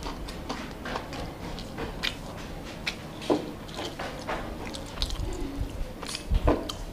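A man chewing a mouthful of rice and chicken, eaten by hand: wet mouth sounds and lip smacks, a string of short irregular clicks.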